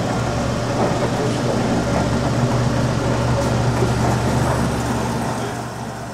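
Wells Model 1200 automatic horizontal band saw running, its 1-1/2 HP three-phase main drive giving a steady low hum with mechanical whirring over it, fading out over the last couple of seconds.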